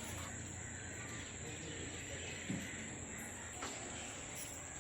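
Steady background ambience with a constant high-pitched whine, and crows cawing faintly.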